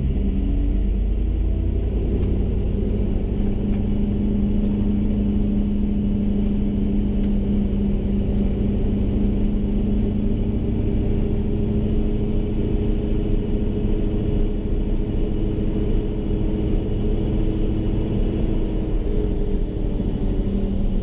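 A 1980 Chevy C30 rollback truck's swapped-in 8.1-litre Vortec V8 running steadily, with a steady low engine drone and rumble.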